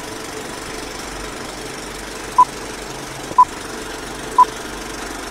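Film projector running with a steady mechanical clatter. About halfway through, short beeps of one pitch join it at one a second, the beeps of a film countdown leader.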